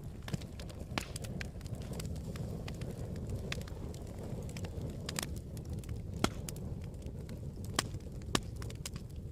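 Campfire crackling: a steady low rumble of burning with sharp pops and snaps at irregular intervals, the loudest pop about two-thirds of the way through.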